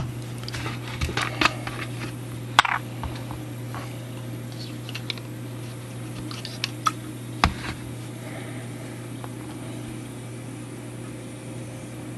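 Scattered light clicks and taps of small tools and a plastic bottle being handled on a workbench, over a steady low hum. The loudest taps come about two and a half and seven and a half seconds in.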